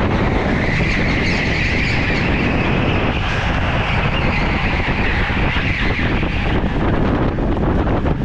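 Go-kart running at speed around a track, heard from a camera mounted on the kart, with a steady high band of drive noise that drops away about six and a half seconds in.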